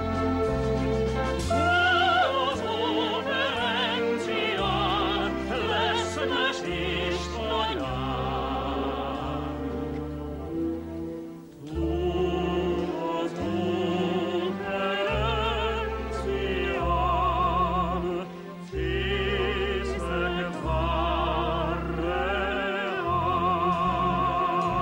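Operetta singing by a man and a woman with a wide vibrato, over an orchestral accompaniment, with a short break in the music just before the middle.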